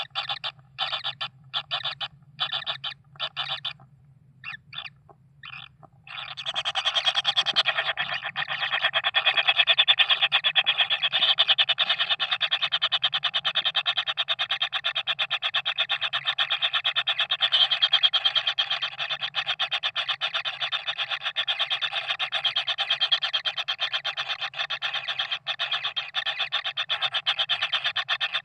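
Animal calls: separate short pulses for the first few seconds, then, about six seconds in, a continuous fast pulsing buzz that keeps going steadily, over a low steady hum.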